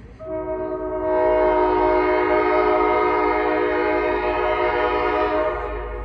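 Diesel locomotive horn on a Vermont Railway freight train sounding one long blast of about five seconds, a chord of several notes, the warning an approaching train gives for a grade crossing.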